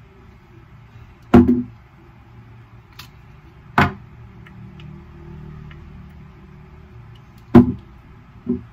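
Skincare bottles handled and set down on a hard surface: four sharp, irregular knocks, the loudest about a second and a half in and near the end, over a steady low hum.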